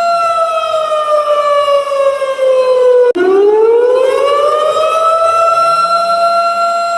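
Warning siren holding a steady tone, then sliding slowly down in pitch for about three seconds. After an abrupt break it rises back up to the same tone and holds steady.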